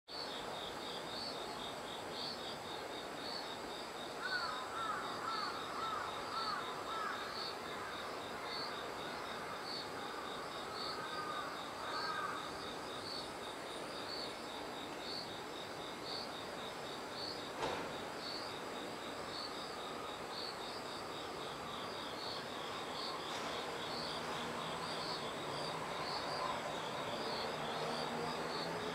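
Singing insects, like crickets, make a steady high trill with regular chirps about one and a half times a second. A bird gives a run of short calls about four seconds in and again near twelve seconds, and there is a single click a little past halfway.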